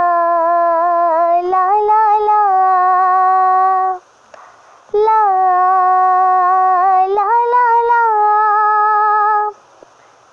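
A young female voice, unaccompanied, singing the song's melody without words in two long held phrases with a short breath between them.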